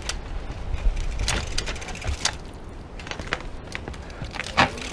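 Mountain bike knocking and rattling on concrete steps as it is ridden slowly down them, a scatter of sharp clicks and knocks with a louder knock near the end. Wind rumbles on the microphone in the first two seconds.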